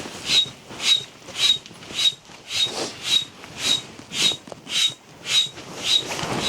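Footsteps crunching in very cold, dry snow, about two steps a second, each with a short squeak.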